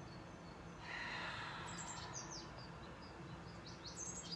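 Garden birdsong: short high chirps about two seconds in, then a fast, high repeated trill starting near the end. A soft hiss of air comes about a second in.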